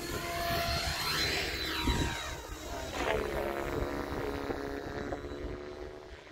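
RC model airplane's motor and propeller whining overhead, its pitch sweeping up and back down as the plane manoeuvres, then fading as it climbs away.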